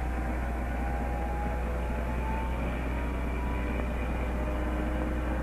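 Ford Skyliner retractable hardtop's electric roof mechanism running as the steel roof rises out of the trunk and swings forward: a faint, steady whine that drifts slowly in pitch. It sits under the loud low hum and hiss of an old film soundtrack.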